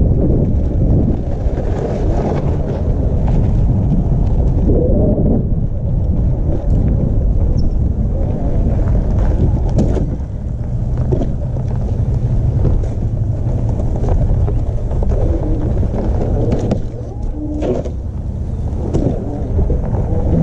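Heavy wind buffeting on the microphone, a loud rough rumble, with a few knocks scattered through it.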